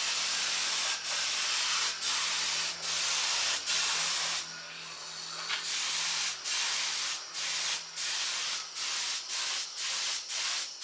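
Paint spray gun spraying acrylic paint: a steady hiss of air and atomised paint, cut by short breaks about once a second as the trigger is let off, with a quieter stretch around the middle.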